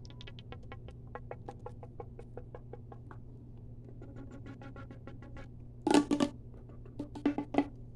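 Fast ASMR tapping: rapid light clicks, about eight a second, for the first five seconds, then a few louder taps about six and seven seconds in, over a faint steady hum.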